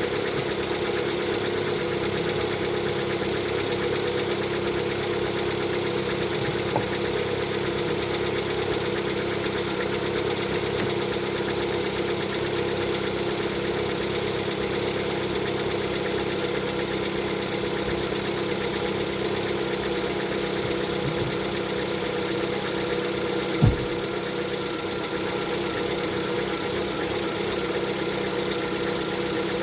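Lada Vesta's four-cylinder petrol engine idling cold, with a knock that the owner takes for piston knock (piston slap) at low mileage. One sharp thump stands out about three quarters of the way through.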